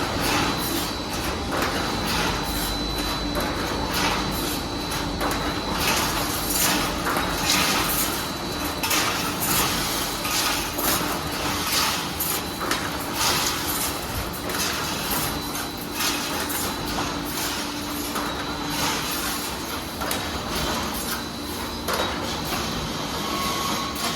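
Automatic steel wire mesh welding machine running, a steady mechanical noise with a thin high whine and a dense, irregular clatter of metal knocks from the wire feeding and welding strokes.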